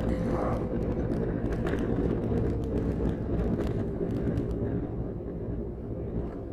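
KTM 1290 Super Adventure's V-twin engine running at a steady cruise, with wind rush on the microphone and a few scattered clicks; the level drops a little near the end.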